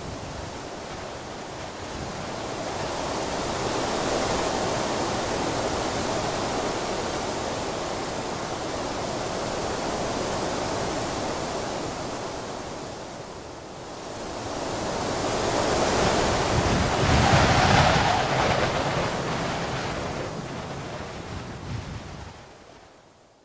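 Rushing sea and wind, a steady wash of waves that swells twice, more strongly the second time, then fades out near the end.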